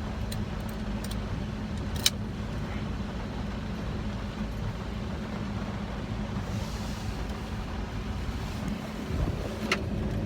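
Steady low hum inside a truck cab, with a constant pitch throughout and a few sharp clicks in the first couple of seconds and another near the end.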